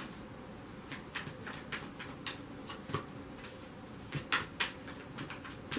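A deck of tarot cards being shuffled by hand: a run of soft card flicks and rustles, with a few sharper snaps about four seconds in and again just before the end.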